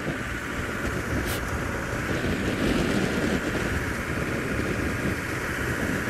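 A safari vehicle's engine running steadily, with wind rumbling on the microphone.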